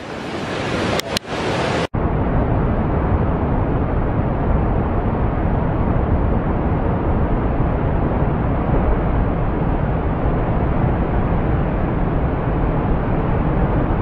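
Breaking surf and wind buffeting the microphone, with two short clicks about a second in. The sound cuts abruptly about two seconds in to a steady, duller rush of surf and wind that is heaviest in the low end.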